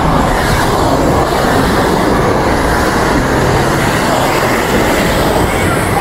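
Steady rushing noise of a busy beach: surf washing in and wind on the microphone, with faint crowd chatter beneath.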